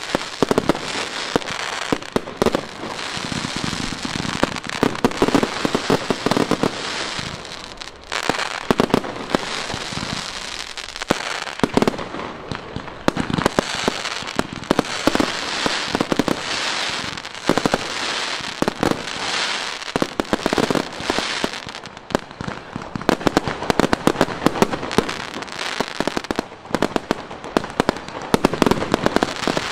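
Consumer fireworks display: a continuous barrage of aerial shells and cake shots bursting, with rapid bangs and crackling, easing off briefly a few times before picking up again.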